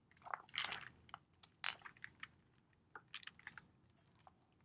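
Faint rustles and clicks of a paper picture book being handled as a page is turned, in a few short scattered bursts.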